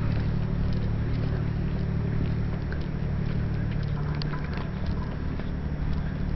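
Steady low engine hum, with faint footsteps on concrete ticking over it.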